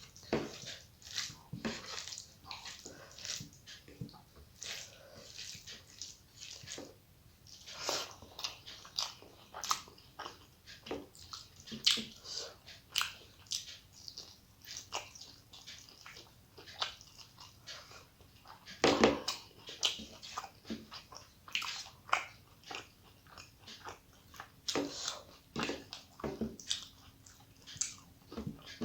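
A person eating rice and curry close to the microphone: irregular chewing and wet mouth sounds, with many short smacks and clicks.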